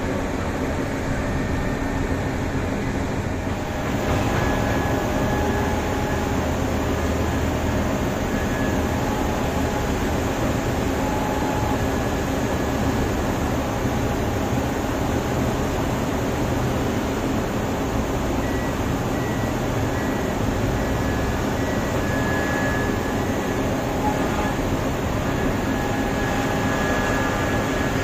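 Heavy mining machines running steadily at work, a deep continuous engine noise with faint whining tones over it, growing a little louder about four seconds in.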